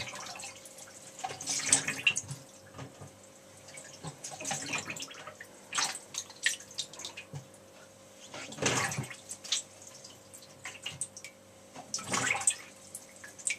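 Zanussi washing machine drum turning slowly in a wash cycle, water and clothes sloshing in rhythmic surges every few seconds over a faint steady hum.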